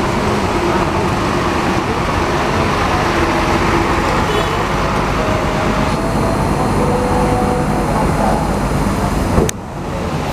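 Bus engines running amid steady traffic noise and a hiss of rain. A sharp click about nine seconds in, after which the sound is briefly quieter.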